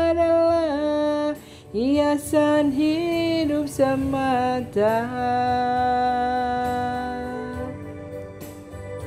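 A slow Indonesian song sung by one voice in long held notes that slide between pitches, over a quiet instrumental backing; the sung line ends on the word 'semata' about five seconds in.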